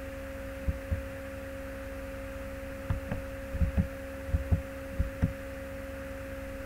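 Steady electrical hum on the recording, with about ten soft, low thumps between roughly half a second and five seconds in: a computer keyboard's keys and a mouse being pressed while values are entered.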